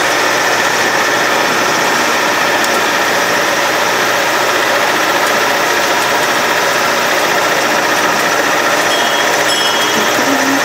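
Sightseeing flower train running steadily, its engine and running noise heard from on board a passenger carriage.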